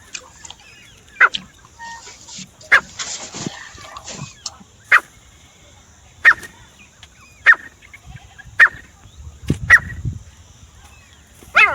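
Francolin (teetar) calling: a series of short, sharp notes repeated about once every second or so, eight in all.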